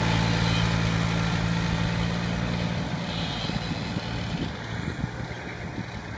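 Tractor engine running steadily, then fading out about halfway through, leaving a rough low rumble.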